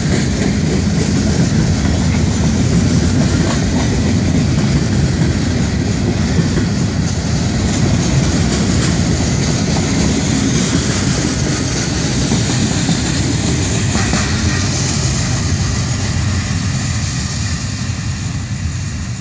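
Freight cars of a long Florida East Coast Railway freight train rolling past steadily on steel wheels over the rails, a continuous low-heavy noise that eases a little near the end.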